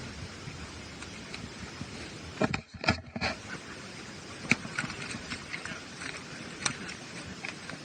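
Running footsteps on a wet, muddy trail: a steady scuffing with irregular footfalls, and a cluster of louder knocks about two and a half seconds in.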